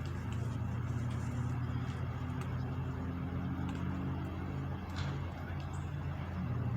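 Vehicle engine running steadily at low revs, a constant low hum, with a few faint clicks over it.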